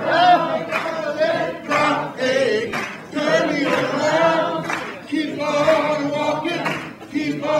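A large crowd singing together, unaccompanied, in phrases of about two seconds with short breaks between them.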